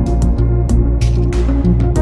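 Background music: a guitar-led instrumental with a steady bass and regular percussion.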